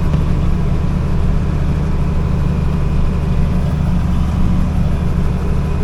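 Heavy farm vehicle engine running steadily, a constant low drone heard from inside the cab.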